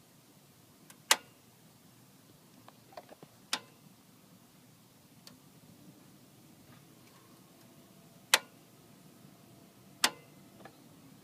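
Irregular sharp clicks from a Ford Focus ST-2 with the engine switched off: four loud ones several seconds apart and a few faint ticks between them. The owner wonders whether it is just the heat, the exhaust manifold ticking as it cools.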